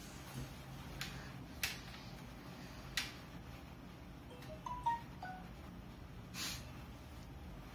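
A few faint taps and clicks, then a short electronic chime of several quick notes at different pitches, about four and a half seconds in, from a device being switched on or unlocked. A soft swish follows near the end.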